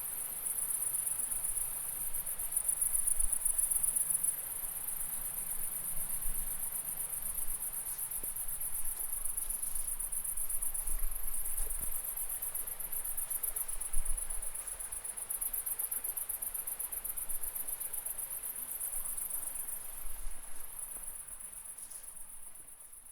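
Crickets chirping at night in a dense, continuous high-pitched trill, fading out near the end.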